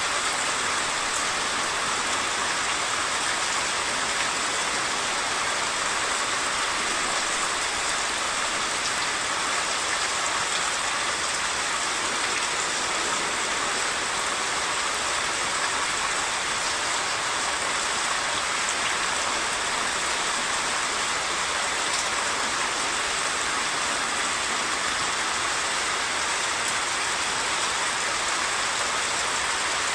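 Heavy monsoon rain falling steadily, mixed with the rush of a flooded, fast-flowing stream: an even, unbroken hiss with a few faint drop ticks.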